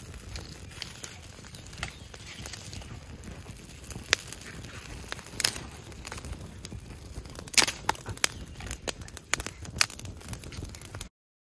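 Birch bark tinder crackling and popping as a small campfire catches, sharp irregular pops over a low rush of flame, the loudest about seven and a half seconds in. The sound cuts off suddenly near the end.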